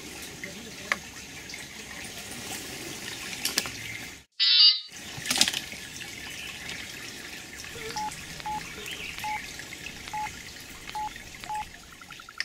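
Small forest stream running steadily over shallow rocks. About four seconds in, the sound drops out briefly and comes back with a loud short shrill electronic tone. Near the end there is a series of six short electronic beeps at one pitch.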